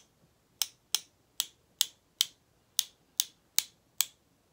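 One paintbrush tapped sharply against the handle of another, about ten crisp clicks at roughly two a second, spattering paint to flick star dots onto wet watercolour.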